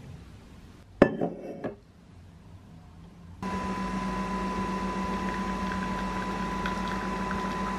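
A sharp clack with brief clattering about a second in, then a coffee machine starts up and runs with a steady hum and a high whine while it dispenses coffee into a metal tumbler.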